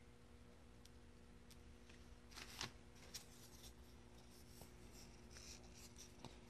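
Near silence, with a few faint clicks and rustles as hand pruning shears snip the tip off a chestnut rootstock seedling and are handled over newspaper. The clearest click comes about two and a half seconds in.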